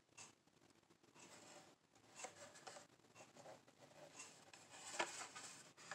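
Faint rustling and rubbing of a Hot Wheels cardboard-and-plastic blister pack handled in the fingers, with scattered light ticks and a sharper click about five seconds in.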